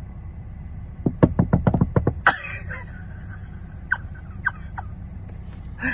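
Rapid knocking on the locked car's window from outside, a fast run of about nine knocks, followed by a brief harsh sound and three single taps, over a low steady rumble from the car.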